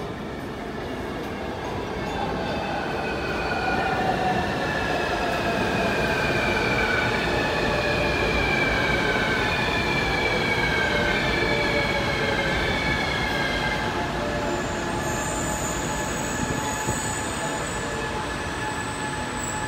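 New Taipei Metro Circular Line train pulling into a station: the whine of its electric traction drive falls steadily in pitch as it brakes, over rolling noise. A high, thin squeal comes in near the end as it comes to a stop.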